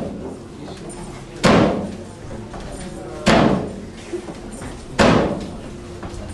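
Slow, even percussion: three heavy slam-like strikes about 1.8 seconds apart, each ringing away before the next.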